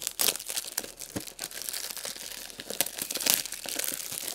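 Clear plastic shrink-wrap being torn and peeled off a fragrance box: a dense run of crinkling and crackling, loudest about three seconds in.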